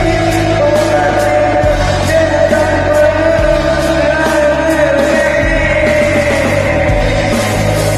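Rock music with singing, the voice holding long notes over drums and bass.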